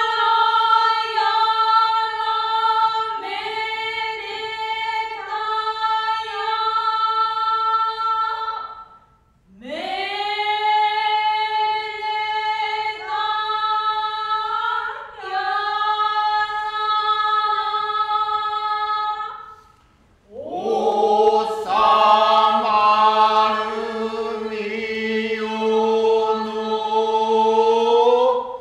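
Kyogen chorus chanting in unison without instruments, in long held notes: three phrases with short breaks about 9 and 20 seconds in. A lower line of voices comes in with the third phrase.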